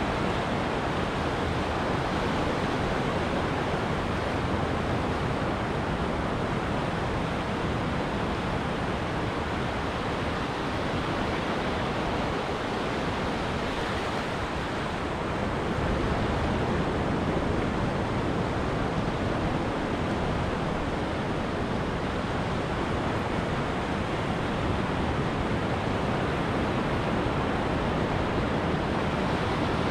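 Ocean surf breaking and washing up a beach: a steady rushing noise that swells a little about halfway through.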